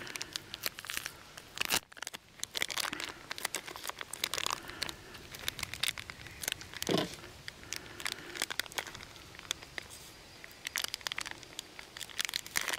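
Plastic bag crinkling and rustling in irregular bursts as it is handled and opened by hand.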